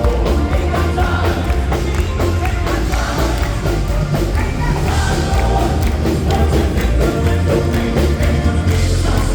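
Live southern gospel quartet with band, playing an upbeat song with a steady beat and a strong bass line, voices singing in harmony.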